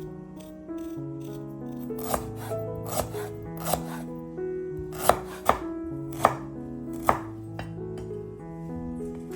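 Knife chopping on a cutting board: about seven sharp, unevenly spaced cuts, over background music.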